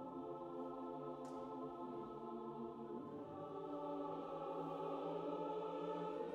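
Large mixed choir singing slow, long-held chords, the harmony shifting about halfway through.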